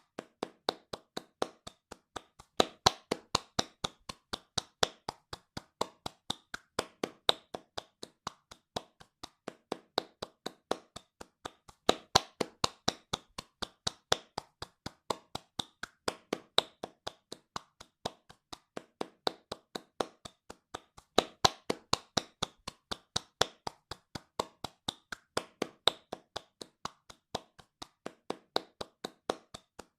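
Hands clapping fast in a steady rhythm, about four claps a second, some claps louder than others.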